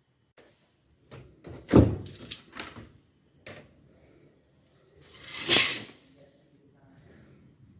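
Handling sounds: a few sharp knocks and clicks, then a longer sliding, rubbing noise about five seconds in, like a door, drawer or lid being moved.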